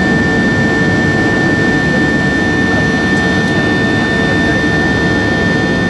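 Boeing 737-700's CFM56-7B jet engines at climb power just after takeoff, heard inside the cabin: a loud, steady roar with a steady high-pitched whine over it.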